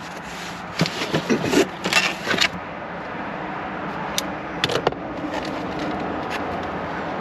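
Packaging being handled as a new gate keypad is unboxed: a quick run of rustling and scraping for the first couple of seconds, then a few light clicks. A steady low hum lies underneath throughout.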